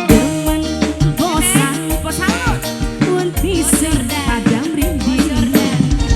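Live band music: a steady bass-and-drum beat under a melodic line that slides up and down in pitch.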